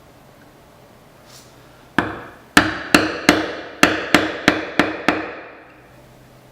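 A hammer striking wood in a quick series of nine blows, about three a second, each with a brief ringing tail.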